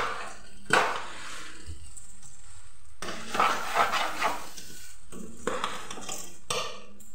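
Long metal spoon stirring and scraping rice in a stainless steel pot, in several separate bursts of scraping.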